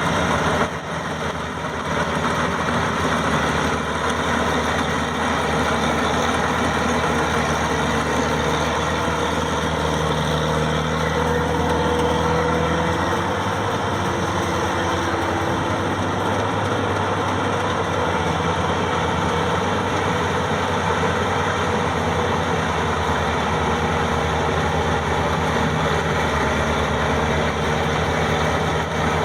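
Maxxi 85 combine harvester's engine running steadily, its pitch shifting slightly about ten to fifteen seconds in.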